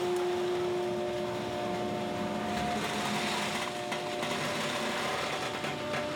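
Hydraulic industrial baler running as it works a bale: steady machine noise with a hum whose tones shift partway through.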